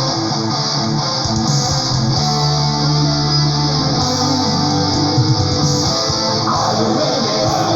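Neoclassical melodic metal recording playing, with guitars to the fore. A low note is held for about two seconds partway through.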